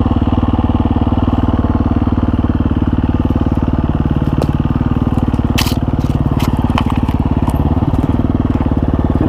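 Husqvarna FE350s single-cylinder four-stroke dirt bike engine running at steady low revs, with scattered sharp clicks and knocks, mostly in the middle of the stretch.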